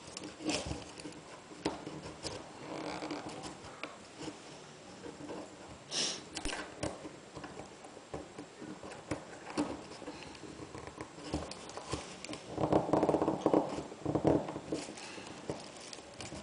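Small servos being pushed and wedged into a cut-down plastic RC helicopter frame by hand: scattered plastic clicks, taps and scrapes, with a louder stretch of rubbing and rattling about three-quarters of the way in.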